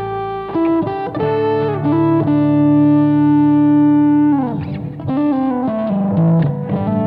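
Instrumental music: an electric guitar plays a lead melody with string bends over bass and chords. In the middle it holds one long note for about two seconds, then bends it down.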